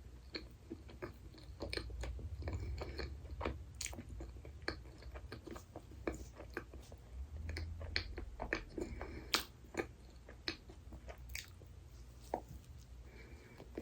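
Close-miked chewing of dessert, with many small sharp clicking mouth sounds throughout.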